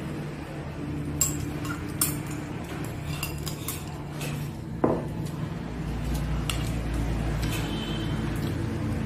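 Wooden chopsticks clinking and scraping against a small ceramic rice bowl while rice is eaten from it, with a few sharp clinks, one briefly ringing about five seconds in. A steady low hum runs underneath.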